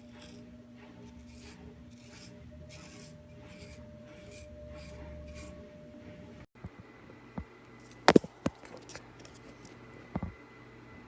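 Handling of a folding pocket knife: rhythmic scraping strokes about two a second, then after a break a few sharp clicks, the loudest about eight seconds in.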